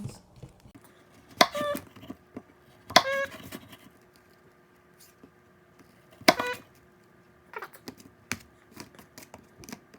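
Knife cutting apple into small slices: three sharp strikes, each with a short ring from the plate or surface beneath, then a run of lighter taps near the end.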